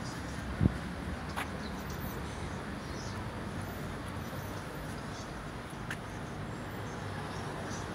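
Steady background noise with a low hum, broken by a single dull thump a little after the start and a few faint, short high chirps.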